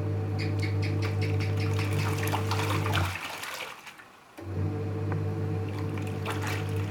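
Panasonic NA-W77FCW1 twin-tub washing machine washing: the wash motor hums steadily as the pulsator churns the clothes and water sloshes. About three seconds in the motor stops, then starts again a second later, the pulsator reversing direction to turn the clothes over.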